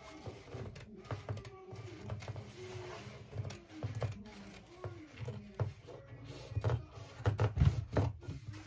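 Hands handling and smoothing ankara print fabric on a tabletop, with irregular knocks, scrapes and clicks, then scissors starting to cut through the fabric near the end; the loudest knocks come about seven to eight seconds in.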